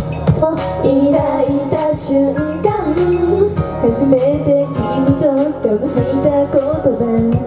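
Live idol-pop song: young women's voices singing the melody into microphones over amplified pop backing music with a steady beat.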